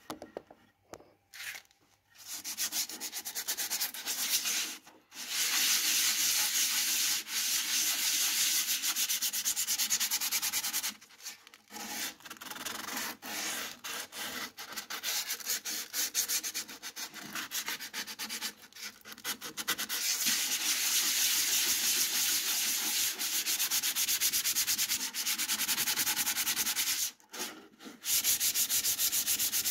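Hand sanding a flat wooden board with a sanding disc on a round backing pad, rubbed rapidly back and forth in long runs broken by a few short pauses.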